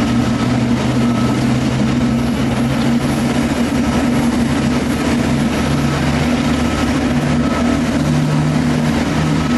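Airbus A330-900 taxiing, its Rolls-Royce Trent 7000 turbofans running at taxi power: a steady jet-engine drone with a low hum that steps up slightly in pitch about halfway through.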